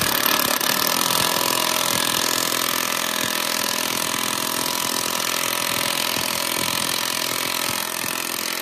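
A machine running steadily: a loud, even hiss with a buzzing hum underneath, starting suddenly and holding level.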